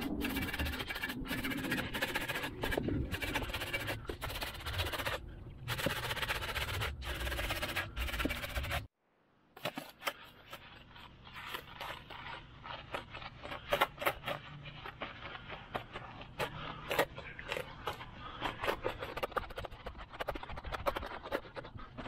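Bristle brush scrubbing a wheel and tire coated in cleaner, a run of quick scraping strokes. The sound cuts off about nine seconds in, then resumes quieter with sharper, scratchier strokes.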